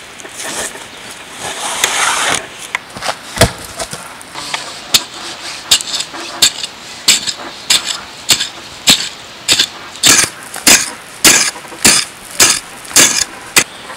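A long pole jabbed again and again into stony forest soil to dig a hole, each stroke a sharp strike, about one and a half a second, getting slightly quicker toward the end. A rustle of cord being worked comes before the strikes.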